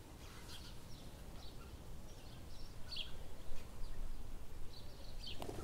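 Small birds chirping now and then, short high calls scattered through, over a low steady rumble of outdoor background noise.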